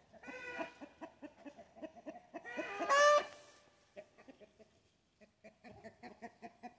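Chickens clucking in a quick, steady run of short clucks, with one loud, drawn-out squawk about two and a half seconds in.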